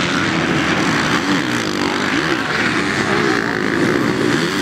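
Several racing motorcycle engines revving hard at the same time, their pitches rising and falling as the riders work the throttles.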